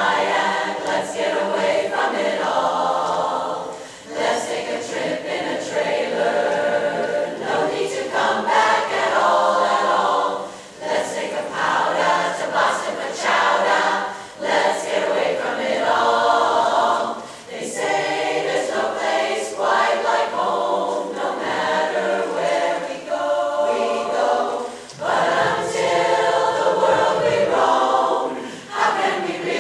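Large women's chorus singing a cappella in harmony, in long phrases broken by short breaths.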